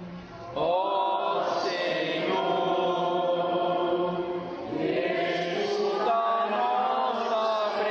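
Slow sung liturgical chant with long held notes, beginning about half a second in, with a short break for breath just before five seconds in.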